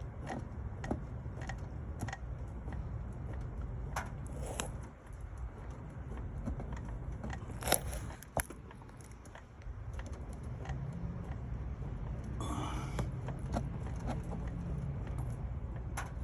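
Toyota Tacoma 4.0L V6 engine running, with a rattle and irregular ticks from a worn water pump. The owner takes it for a bad water pump that has not started leaking.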